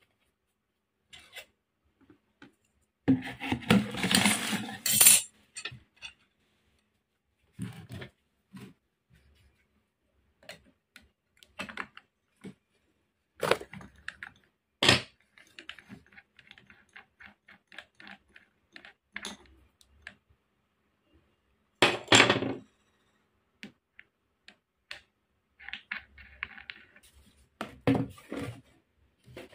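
Handling noises at a workbench: a plastic tub being handled and put down on a wooden table, and metal angle-grinder parts (disc, flange and nut) clinking and knocking. There is a dense burst of rattling about three to five seconds in, and scattered sharp knocks and clinks after it; the grinder is not running.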